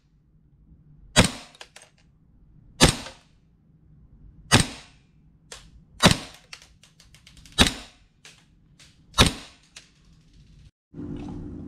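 Gas blowback airsoft 1911 pistol fired six times through a chronograph, about one shot every second and a half. Each shot is a sharp crack, and several are followed by lighter clicks. The pistol has a Nine Ball 6.00 inner barrel and hard bucking, and is shooting at about 290 FPS.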